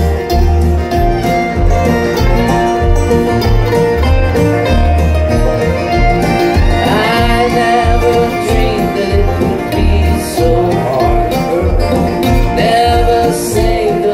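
Live bluegrass-style band playing, with banjo, guitar and fiddle over a steady bass and kick-drum beat, heard from the back of the room.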